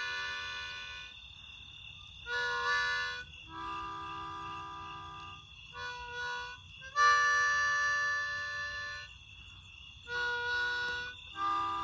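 Harmonica playing a slow run of held chords, each sounding for about half a second to two seconds with short breaths between them.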